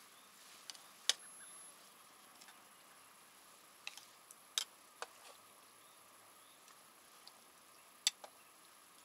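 A metal ladle clinking against a cooking pot and a ceramic bowl as soup is dished out: a few sharp clicks spread irregularly over several seconds.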